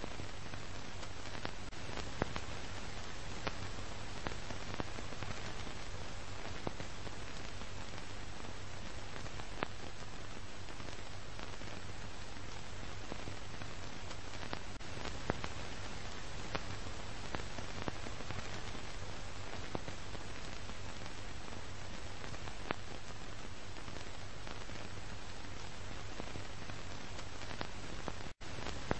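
Steady hiss and crackle of a worn archival film soundtrack, with scattered pops and a low hum; the sound drops out briefly near the end.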